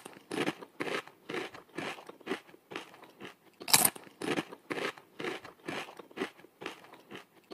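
Chinese grasshopper (Acrida cinerea) chewing a corn leaf: short crisp crunches about two a second, one a little louder just before the middle.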